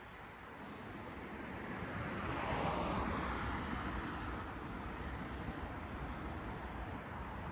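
A car driving past on a city street: tyre and engine noise swells to a peak about three seconds in and fades away, over a steady hum of traffic.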